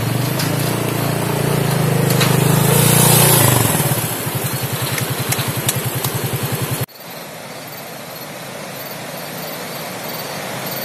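Motorcycle engine running at low speed as the bike rolls across a suspension footbridge. The note swells, then settles into an even pulsing beat. About seven seconds in it cuts off abruptly to a steady rushing noise.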